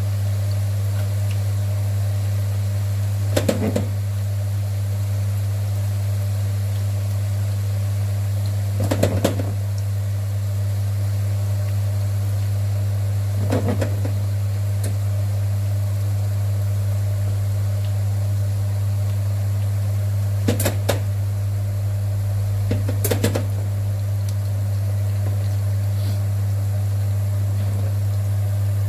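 Meatballs frying in hot oil in a pan, a steady sizzle over a loud steady low hum, with five brief clatters spread through it.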